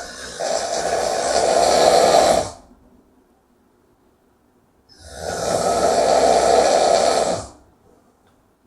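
A person snoring loudly: two long snores about five seconds apart, each lasting close to three seconds, with quiet between them.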